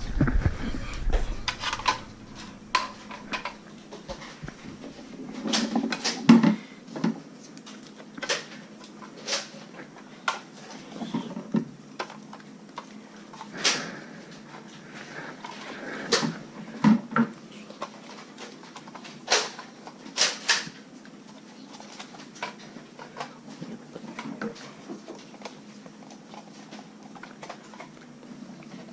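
Scattered sharp clicks, knocks and clatters, irregular and spread throughout, from plastic Nerf blasters being handled and fired, darts striking, and people moving about the room.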